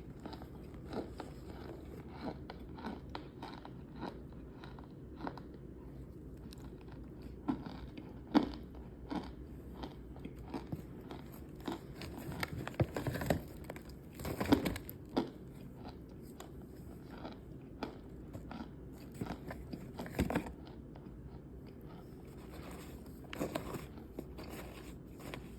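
Close-up biting and chewing of cornstarch: irregular soft crunches and crackles, with louder bites about 8, 14 and 20 seconds in.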